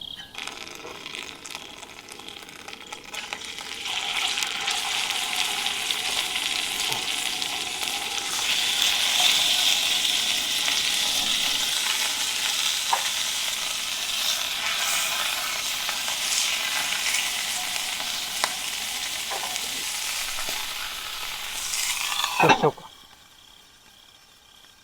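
Block of beef round searing in oil in a skillet, a steady sizzle that grows louder about four seconds in. It cuts off suddenly with a knock near the end.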